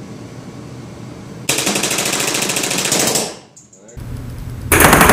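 Tiberius Arms T15 paintball marker firing First Strike rounds in full auto, rated at about 13 balls a second. One rapid burst lasts under two seconds, starting about a second and a half in, and a second burst begins near the end.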